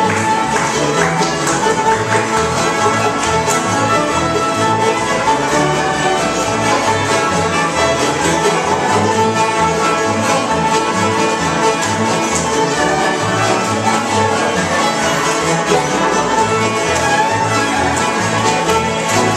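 Acoustic string band playing an instrumental fiddle tune: the fiddle carries the melody over strummed acoustic guitars, a mandolin and an upright bass keeping a steady beat.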